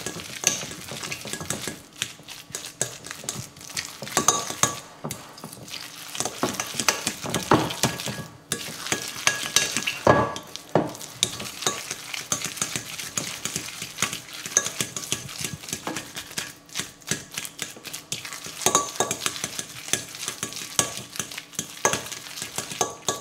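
A metal fork stirring and mashing a moist bread-and-grated-coconut mixture in a glass bowl, with irregular scrapes and clicks of the fork against the glass.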